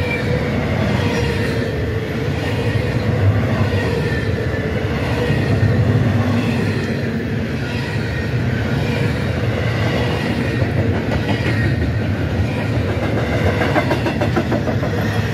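Double-stack intermodal freight train of container well cars rolling past at close range: a steady rumble and rattle of steel wheels on rail, with a faint steady ringing tone above it.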